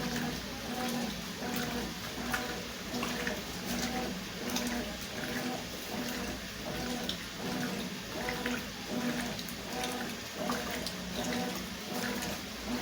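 Consul CWS 12 top-loading washing machine agitating a load of sheets and towels in water: the motor hum pulses on and off about one and a half times a second as the agitator swings back and forth, over steady water sloshing.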